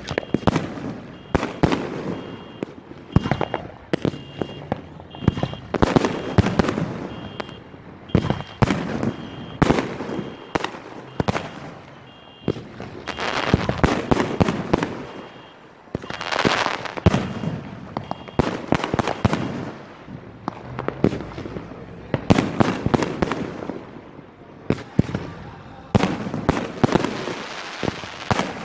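Fireworks display: aerial shells bursting in quick succession, sharp bangs mixed with stretches of crackling.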